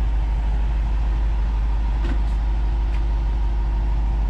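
2019 RAM 5500 truck engine idling steadily, a low even rumble, with a few faint clicks.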